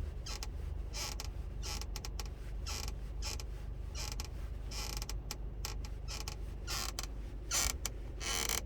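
Seat belt buckle creaking in short, irregular bursts, loudest near the end, over a steady low hum: the unwanted buckle noise being shown as a fault.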